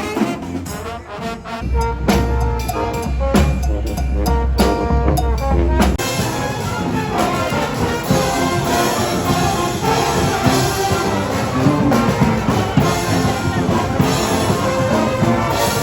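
Brass band playing, with trombones and trumpets over drums. A deep bass line carries the first six seconds or so, then the band comes in fuller.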